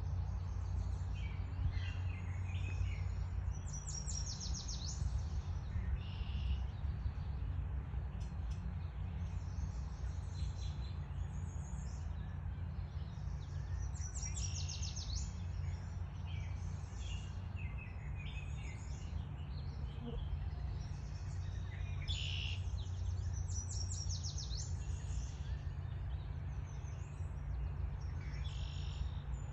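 Wild birds singing: repeated short high songs and fast trills, recurring every several seconds, over a steady low rumble.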